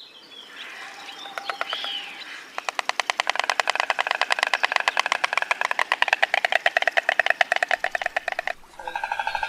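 Stork clattering its bill: a fast, even run of dry clicks, about ten a second, starting some two and a half seconds in and stopping suddenly near the end. Before it come softer, scattered sounds.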